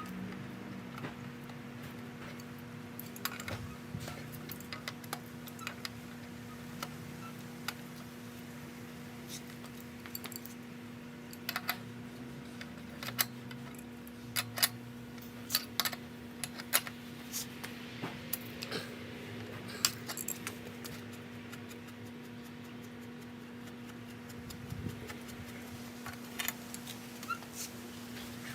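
Scattered metallic clicks and clinks of hand tools and bicycle parts being handled, more frequent in the middle stretch, over a steady low hum.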